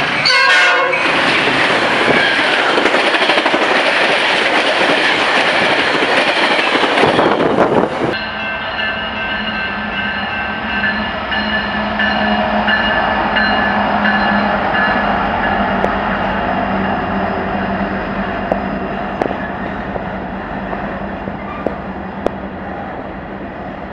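A double-stack container freight train passing close at speed, a loud steady rush of wheels on rail. About eight seconds in it changes abruptly to an empty coal train rolling through a grade crossing: a steady low rumble with several held high tones and scattered sharp clicks of wheels over rail joints.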